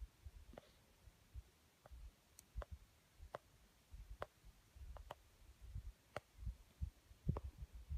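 Faint handling noise from a handheld phone: irregular sharp clicks roughly once a second, with dull low thumps from the phone being gripped and moved.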